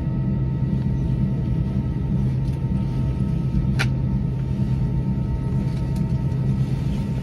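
Steady low drone of an A320-family airliner's jet engines at idle, heard from inside the passenger cabin, with a few faint steady tones above it. A single sharp click about four seconds in.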